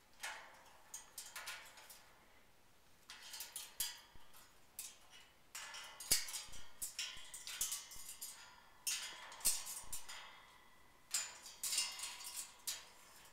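A miniature metal cow bell toy clanking and ringing in irregular bursts of clinks as an Eclectus parrot knocks it about.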